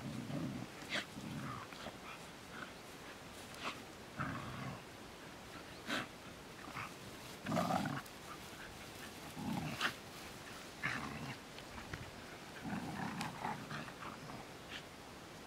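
Border Collies play-fighting, giving short growls and snarls in irregular bursts every second or two, with a few sharp clicks among them.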